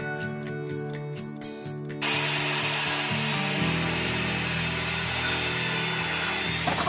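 A power tool running, starting abruptly about two seconds in and holding steady, over background music.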